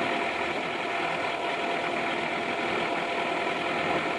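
Motor whaleboat's engine running steadily while the boat is under way on the water.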